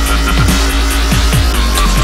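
Electronic dance music soundtrack with a heavy steady bass and a low, falling thump about twice a second.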